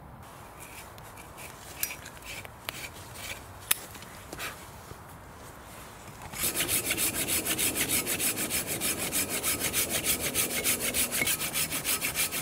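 A few scattered light cracks and clicks, then about halfway in a Silky folding pull saw starts cutting through a dry, moss-covered ash log in quick, even strokes, about four to five a second.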